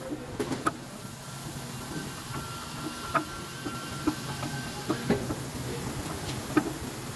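Screw-type brake caliper piston compressor being wound in by hand on a rear disc brake caliper: about half a dozen sharp metallic clicks and ticks from the threaded screw and T-handle, spaced irregularly over a steady low hum.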